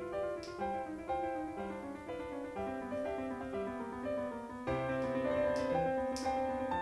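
Background piano music, with a melody of notes changing about every half second; a low bass line comes in about two-thirds of the way through, and the music grows fuller and a little louder.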